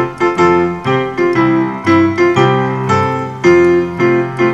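Background piano music: a run of struck notes, each ringing and fading, about two or three a second, with a longer held note near the end.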